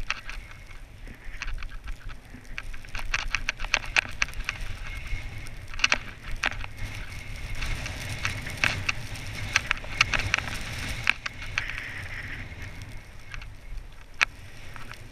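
Sliding downhill through snow: edges scraping and crackling over the snow in quick, irregular clicks, over a low rumble of wind on the microphone.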